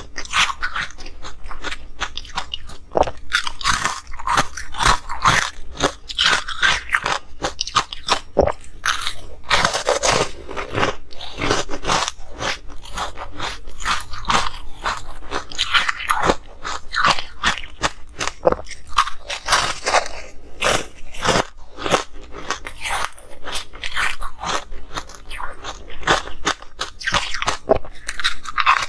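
Close-miked crunching of hard ice being bitten and chewed: a continuous run of sharp cracks and crackles, one bite after another.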